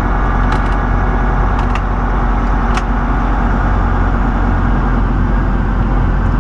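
Diesel semi-truck engine running with a steady low drone, heard from inside the cab, with a few faint ticks. The big turbocharger has failed, and the driver reports no boost.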